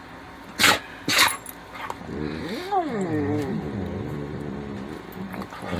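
Dog sneezing twice in quick succession, then a dog 'talking': one drawn-out grumbling vocalization that rises and then falls in pitch for about three seconds.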